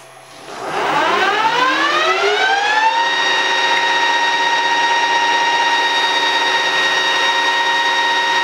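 Metal lathe spindle starting up, its whine rising in pitch for about two and a half seconds as the chuck comes up to speed, then running steadily at one pitch.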